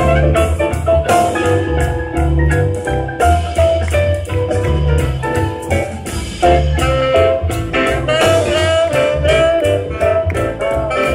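A live small swing jazz band playing an up-tempo number: horn melody over upright bass and a drum kit keeping a steady beat.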